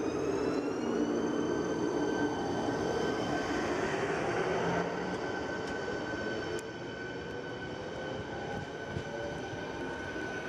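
ČD class 471 CityElefant double-deck electric unit moving off. Its traction equipment whines in several tones that rise over the first second and then hold steady, over a wheel-and-rail rumble that falls away about five seconds in as the train draws off.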